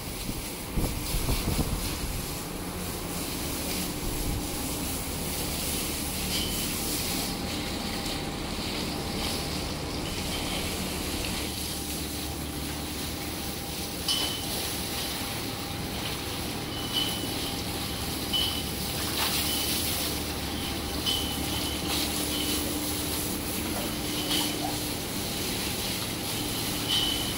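Water from a hose spraying and splashing onto bulls and a wet concrete floor: a steady hiss with brief louder splashes, over a faint steady hum.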